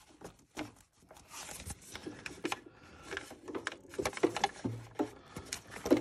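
Handling noise: scattered clicks, taps and rustling as a gloved hand feeds a rubber vacuum supply hose down among plastic engine-bay parts.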